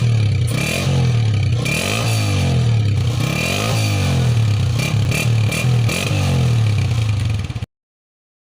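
Honda CG 125 motorcycle's single-cylinder four-stroke engine being revved, the throttle blipped up and let back down several times. The sound cuts off suddenly near the end.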